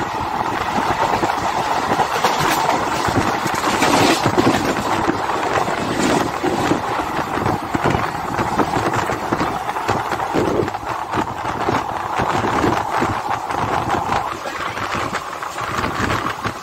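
DEMU passenger train running along the track, heard from an open coach doorway: a steady rumble and rattle of the wheels on the rails with frequent sharp clacks and a constant mid-pitched whine.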